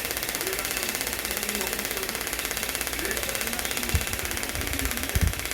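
Scalp micropigmentation tattoo machine buzzing steadily at a rapid, even rate as it works pigment into the scalp, with a couple of low bumps about four and five seconds in.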